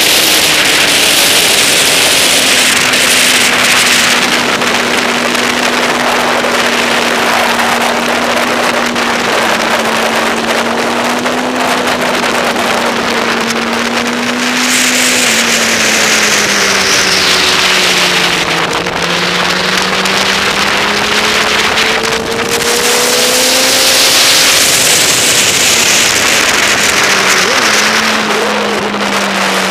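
Motorcycle engine at track speed heard from an onboard camera, buried under heavy wind rush on the microphone. The engine note drops about halfway through as the bike slows into the chicane, then climbs again under acceleration.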